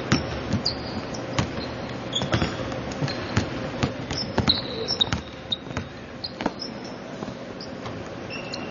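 A basketball being dribbled on a hardwood court, with sharp bounces at an uneven pace of about one to two a second, and short high sneaker squeaks from quick cuts on the floor.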